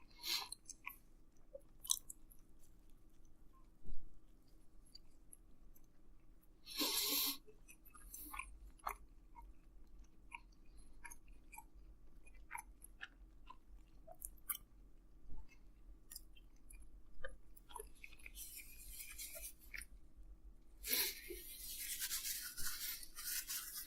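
Faint chewing of a pizza sandwich: scattered soft mouth clicks and smacks, with a brief louder patch about seven seconds in and longer hissy stretches near the end.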